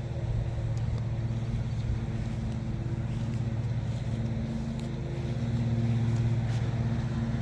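Lawn mower engine running steadily, swelling a little about five to six seconds in, with a few faint clicks over it.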